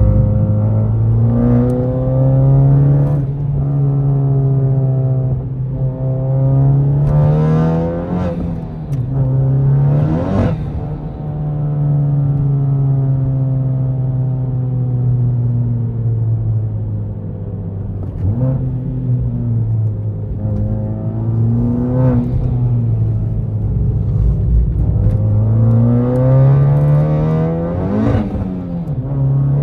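Honda Civic Type R FK8's turbocharged 2.0-litre four-cylinder engine revving hard under acceleration, heard from inside the cabin. The pitch climbs steeply to a sharp peak several times and drops at each lift or shift, with one long, slow wind-down in the middle.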